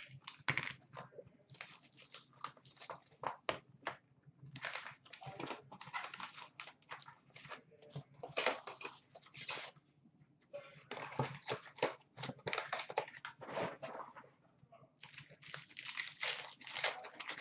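Hockey card pack wrappers and cardboard boxes being torn open and handled: irregular runs of crinkling, ripping and rustling in clusters, with short quiet gaps between.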